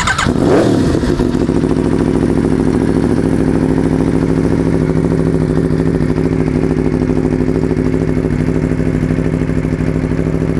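2012 Aprilia Tuono V4's 999cc liquid-cooled V4 engine idling steadily through its 4-into-2-into-1 exhaust, after a quick blip of the throttle about half a second in.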